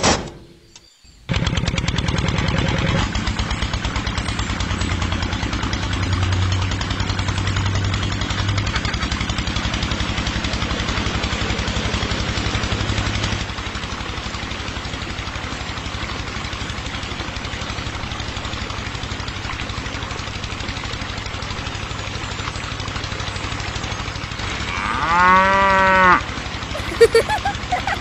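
A click, then about a second later a small electric motor starts and runs steadily with a fast rattle, driving a miniature belt-driven water pump. Near the end a cow moos once.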